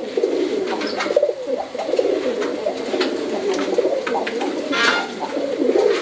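Many domestic pigeons cooing continuously in a loft of wire cages, with a few sharp clicks and a louder rattle about five seconds in from a cage door and its latch being handled.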